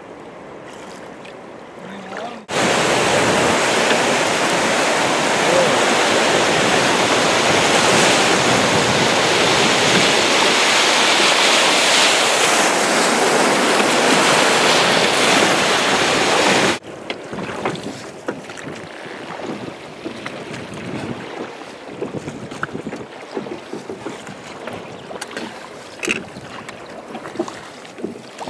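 Faint river hiss, then the loud, even rush of churning river rapids, which cuts in abruptly a couple of seconds in and cuts off abruptly about 17 seconds in. After that the sound is quieter water with scattered small knocks and splashes.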